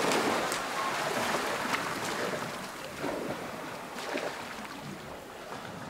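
Water lapping and splashing in small irregular slaps, slowly fading down.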